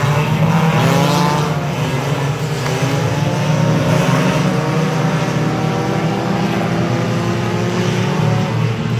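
Engines of several compact race cars running hard on a dirt oval, their pitches rising and falling and overlapping as the cars accelerate and pass.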